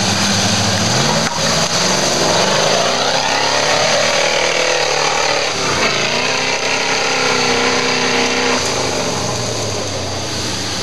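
An off-road trials 4x4's engine revs hard as the vehicle climbs a muddy slope with its wheels spinning. The revs rise about a second in, waver high with a brief dip midway, and drop back near the end.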